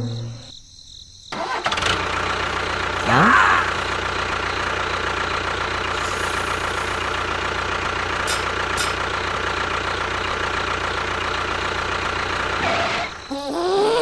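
A motor running steadily. It cuts in abruptly about a second in and stops sharply near the end, with a brief rising whistle about three seconds in.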